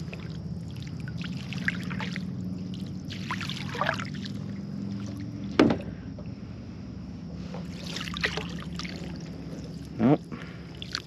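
Dip net swept and splashed through shallow water, with a string of short splashes and sloshes and a sharper splash about halfway through, over a steady low hum.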